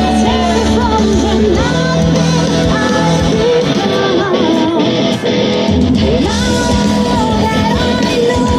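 Live rock band playing: electric guitar over bass and drums, with a melody line sliding up and down. The bass drops out for a moment midway and then comes back.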